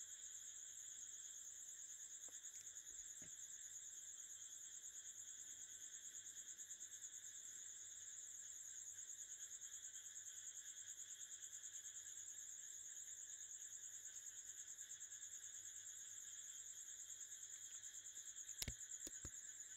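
Faint, steady high-pitched cricket chirping, a rapid pulsing trill. A few short clicks near the end.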